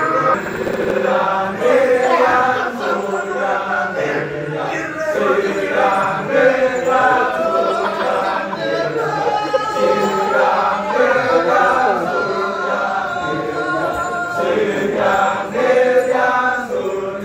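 A group of men chanting together in a Balinese kecak, many voices overlapping in a dense, rhythmic chant.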